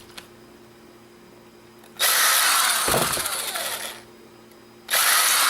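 A small electric screwdriver running in two bursts of about two seconds each, its motor speed sagging briefly under load in the first burst, as it drives out tiny screws.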